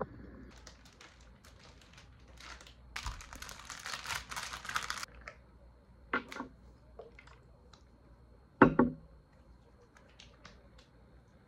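Handling of a plastic skincare toner bottle and hands: scattered light clicks and a couple of seconds of rustling, then a single louder knock a little before the end.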